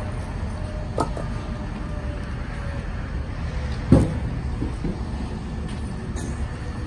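Split hickory firewood pieces knocking together as they are lifted off the load: a few short wooden clunks, the loudest about four seconds in, over a steady low rumble.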